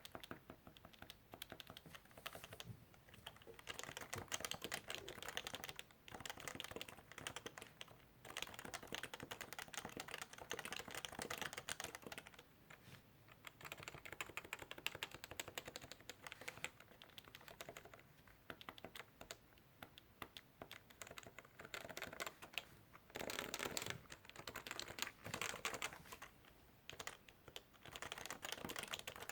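Typing on a Topre Realforce keyboard with electro-capacitive switches: rapid runs of soft key presses in bursts of several seconds, with short pauses between them.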